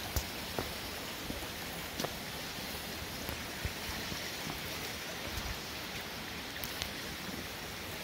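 Steady rush of stream water running over stones into a waterfall-fed natural pool, with a few short clicks scattered through it.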